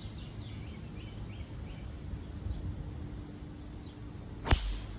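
A golf driver striking a teed ball: one sharp crack about four and a half seconds in, with a short hiss trailing after it.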